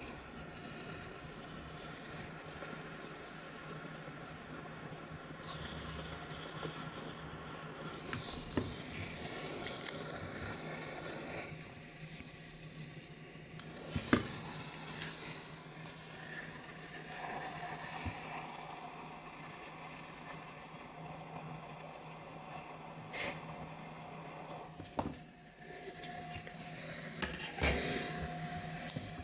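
Hot air rework station blowing steadily onto a laptop motherboard to heat the solder, with a faint constant hum under the airflow. A few sharp clicks and taps break in, the loudest about halfway through.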